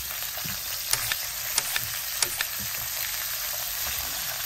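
Burger patties frying in a pan with a steady sizzle. A quick run of sharp spits and pops comes about one to two and a half seconds in.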